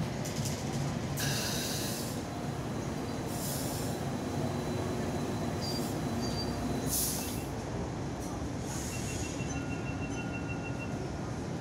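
Hong Kong Light Rail Phase 1 light rail vehicle coming into the stop and standing at the platform, rumbling, with several short sharp hisses. Near the end comes a run of rapid beeps.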